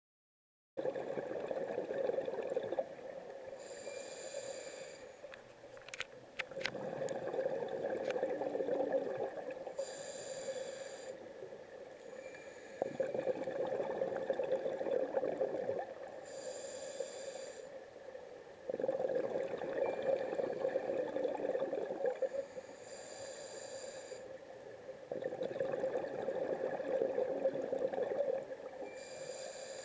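A scuba diver breathing through a regulator underwater, about one breath every six seconds. Each breath is a short, high hiss of inhalation through the demand valve, followed by a longer, louder bubbling exhalation. A few sharp clicks come about six seconds in.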